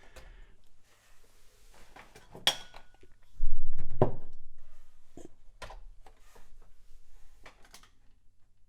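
Hardware and cables being handled on a workbench: scattered clicks and knocks, with one heavier thump about three and a half seconds in that rumbles and dies away over about a second.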